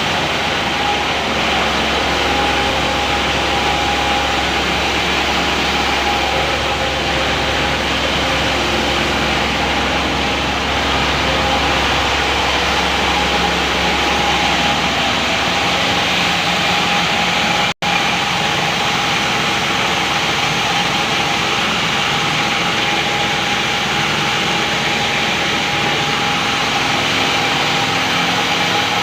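Automatic feeding machine of a layer poultry house running, a steady mechanical hum with a constant tone through it. A low rumble under it fades about halfway through, and the sound cuts out for an instant near 18 s.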